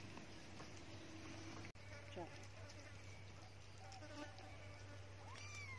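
Faint steady buzzing of flying insects, with a short rising-and-falling call near the end.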